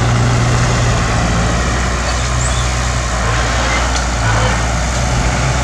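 Bulldozer's diesel engine running steadily, a constant low drone with a noisy mechanical wash over it.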